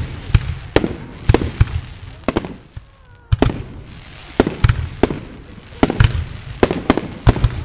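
Aerial fireworks shells bursting in quick succession: a rapid, irregular string of loud bangs, with a brief lull about three seconds in.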